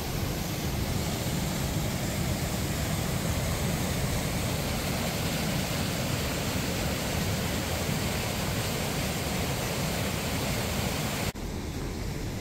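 Waterfall on a mountain creek, a steady full rush of falling water. About eleven seconds in it cuts abruptly to a duller, quieter rush.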